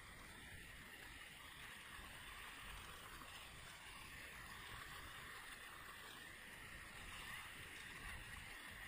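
Faint, steady rush of river water running over shallow riffles and rapids, with no separate splashes or strokes standing out.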